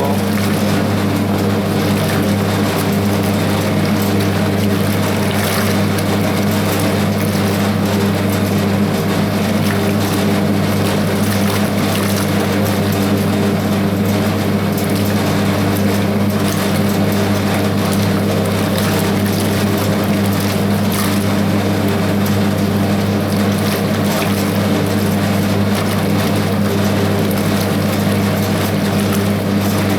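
Hoover 0321 wringer washing machine running steadily: a continuous electric motor hum with water churning in the tub as it washes.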